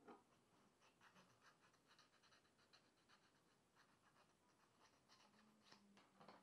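Faint, rapid ticking and scratching, with a few louder clicks, typical of a 3D printer at work.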